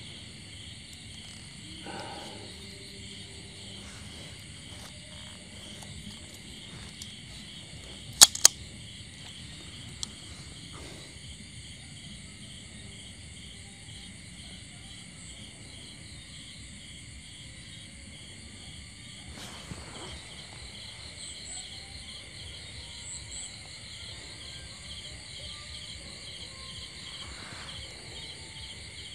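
Crickets and other night insects chirping steadily in a fast, pulsing trill. A quick pair of sharp clicks comes about eight seconds in, and one more about two seconds later.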